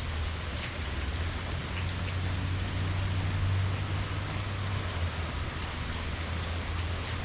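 Steady rainfall, with scattered individual drops ticking over an even hiss, and a low steady rumble underneath.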